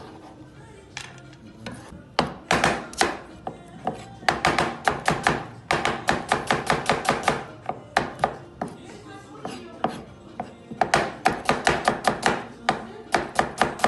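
Kitchen knife chopping on a cutting board in julienne cuts: runs of quick, even strokes, about five a second, with short pauses between the runs.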